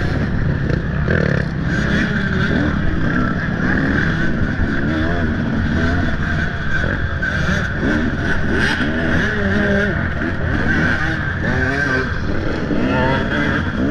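Off-road motorcycle engine running hard, its pitch rising and falling again and again as the throttle is opened and closed.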